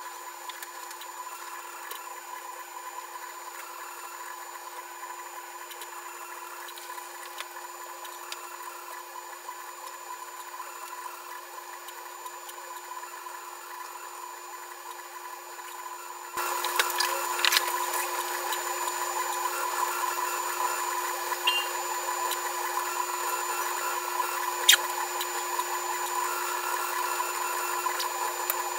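UP Plus 2 3D printer running during a print, its motors and fan giving a steady mechanical whine with fixed tones. It gets suddenly louder a little over halfway through, with a couple of sharp clicks after that.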